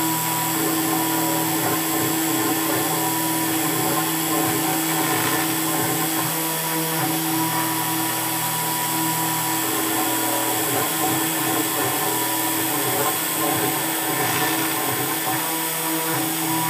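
6040 CNC router's spindle running steadily as an end mill cuts an aluminium prop adapter: a steady whine over a dense cutting noise.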